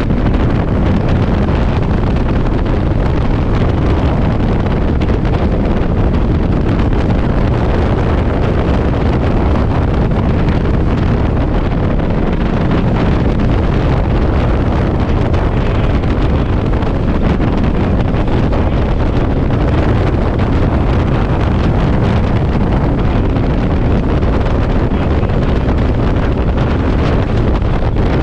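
Heavy wind noise buffeting the microphone on a moving motorcycle in strong gusts: a loud, steady rush that buries the engine.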